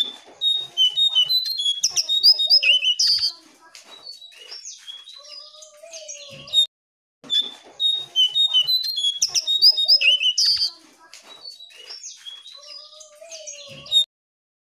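Jongkangan songbird singing a rapid string of chirps and high whistled notes. The same stretch of song plays twice, each pass ending in a short dead-silent gap, with a lower wavering whistle under the song midway through each pass.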